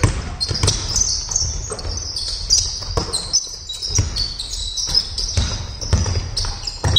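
Basketball dribbled on a wooden sports-hall court, irregular thuds about once or twice a second, with players' sneakers squeaking on the floor in short high chirps.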